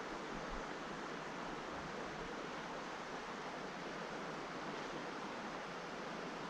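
Steady rushing of river water flowing past, an even hiss with no breaks.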